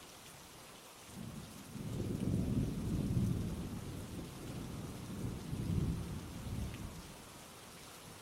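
Steady rain falling on a forest, with a long roll of thunder rumbling in about a second in, swelling twice and fading away near the end.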